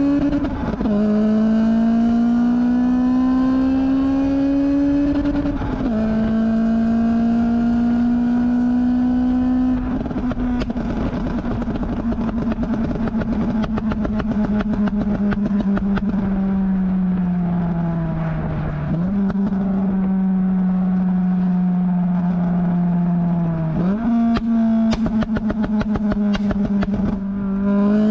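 Honda Civic Type R FN2's K20 four-cylinder exhaust under hard acceleration, the note climbing and dropping at upshifts about a second in and about six seconds in. From about ten seconds in it falls away on the overrun with a stream of exhaust pops and crackles, and the revs jump up at downshifts near the middle and near the end.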